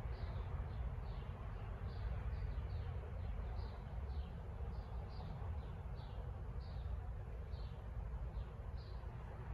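A small bird chirping over and over, short downward chirps about one or two a second, unevenly spaced, over a steady low outdoor rumble.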